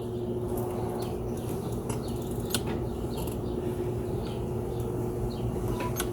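Solar trike's electric drive humming steadily under way, with a thin whine and light clicks and rattles from the chain drivetrain. Birds chirp faintly now and then.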